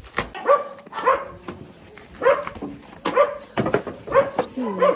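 Dogs barking: a string of about nine short barks with brief gaps between them.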